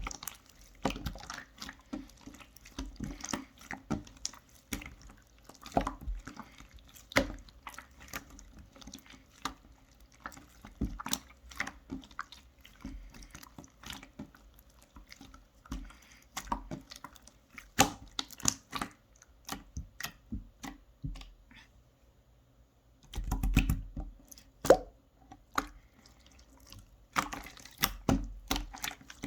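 Two-tone pink mixed slime being squeezed, stretched and poked by hand, giving irregular wet clicks, pops and squelches. A short lull comes about two-thirds of the way through, followed by a louder run of squelching.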